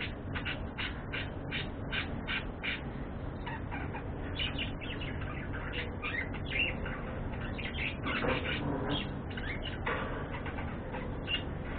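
Budgerigars chirping: a quick series of short, evenly spaced chirps, about three a second, for the first few seconds, then looser, irregular chirps and warbles.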